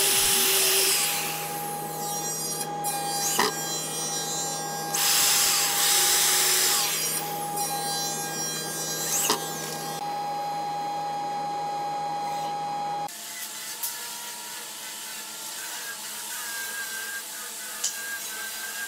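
Corded electric drill boring into a wooden frame board in two loud bursts, one at the start and another about five seconds in, over a steady hum.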